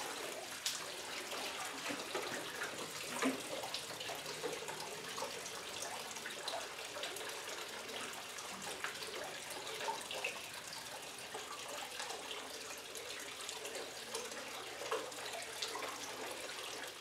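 Tap water running steadily into a metal bucket and a water-filled stone trough, with occasional small splashes and drips as a dog shifts about in the water.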